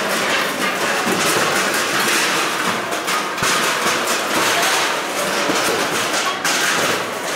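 Continuous din of a tightly packed crowd, with a steady clatter of steel plates and dishes being collected.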